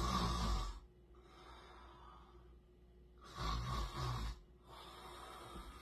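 A person snoring: two loud snores about three seconds apart, one at the start and one about three seconds in, with quieter breathing between them.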